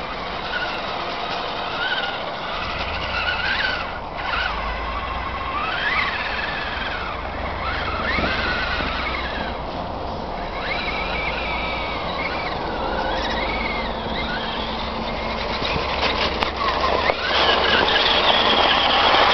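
Electric drive motor of an Axial Wraith RC rock crawler whining, its pitch rising and falling again and again with the throttle, over a hiss of the tires on crusted snow. It gets louder and rougher near the end as the truck comes close.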